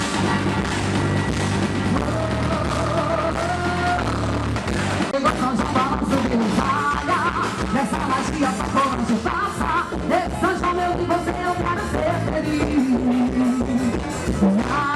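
São João quadrilha dance music with a beat. It opens with a few seconds of held notes, then turns busier, with a melody line over the beat.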